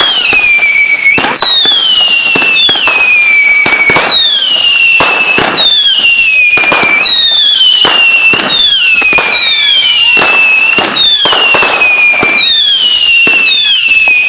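A fireworks battery firing whistling shots in a steady run, about one every second and a half: each a shrill whistle falling in pitch, with sharp cracks between them.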